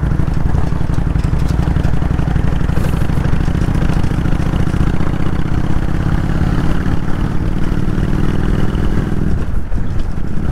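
Kawasaki VN800's V-twin engine running under way on the road, its pitch climbing slowly through the middle, then dipping briefly near the end as the throttle eases.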